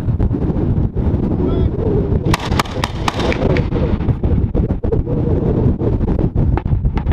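Mark 19 40 mm grenade machine gun firing a short burst of about five rounds, roughly four a second, a little over two seconds in, over steady wind rumble on the microphone.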